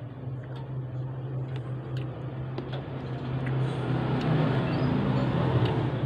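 Close-miked chewing of a bite of beef burger with the mouth closed, with small wet clicks, over a steady low hum. The crackly noise grows louder over the last couple of seconds.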